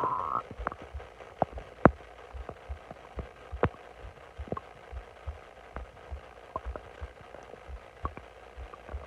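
Bloated stomach gurgling: a loud gurgle right at the start, then scattered small pops and brief gurgles as gas moves through the gut.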